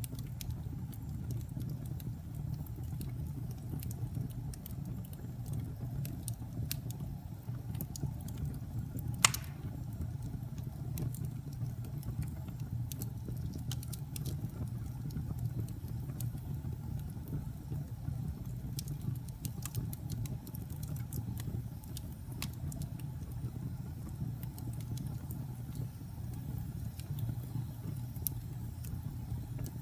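Wood fire burning in a fireplace: a steady low rumble of flames with scattered crackles and one sharp pop about nine seconds in.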